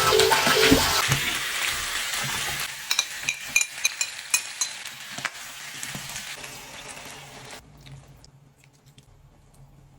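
Food sizzling in a hot pan or wok as it is stirred, with a utensil clinking and scraping against the pan. The sizzle is loudest at first, fades steadily, and stops abruptly about three quarters of the way through.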